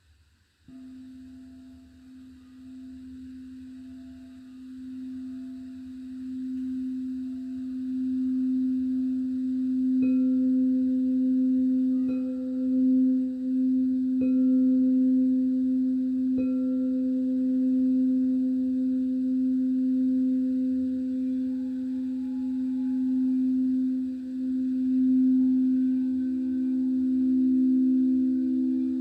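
Crystal singing bowls. One bowl is set sounding about a second in, and its low steady hum swells louder over several seconds as the mallet works the rim. From about ten seconds in, four light strikes about two seconds apart each add a higher ringing tone, and near the end a second, slightly higher tone joins.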